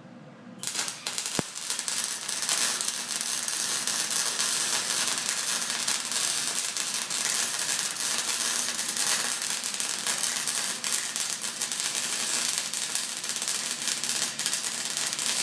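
Electric arc welding: the arc strikes about half a second in and then crackles and sizzles steadily as a bead is run.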